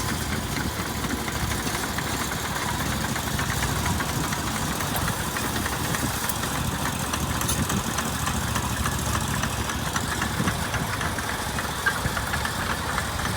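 A crane's engine running steadily during a lift, an even low sound that does not change.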